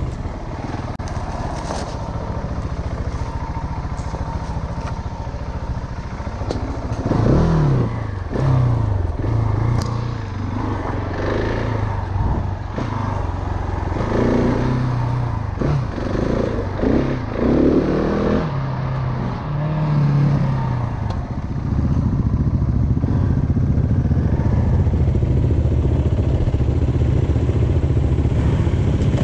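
Single-cylinder dirt bike engine revving up and down as the bike is ridden over a trail, with a few sharp knocks along the way. From about two-thirds of the way through, the engine holds steadier revs.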